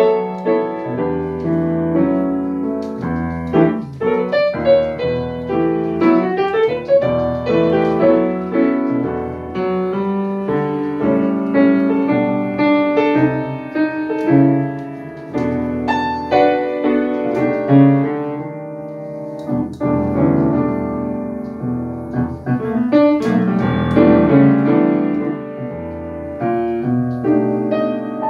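Kawai upright piano playing a song's verse as a steady series of sustained chords, with a few quick note runs between them.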